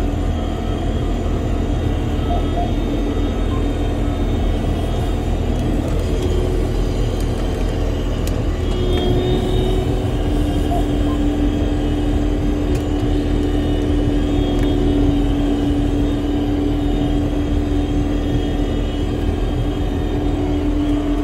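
Cab noise of a John Deere R4023 self-propelled sprayer on the move: a steady, loud low rumble of the engine and driveline, with a steady tone coming in about halfway through.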